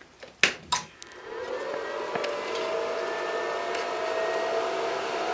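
Dell PowerEdge 2850 700-watt server power supply switching on: two sharp clicks, then its cooling fan spins up with a rising whine over steady rushing air and settles into a loud, continuous run.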